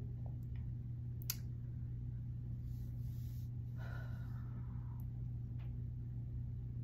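Quiet room tone with a steady low hum, a single sharp click about a second in, and soft breathing.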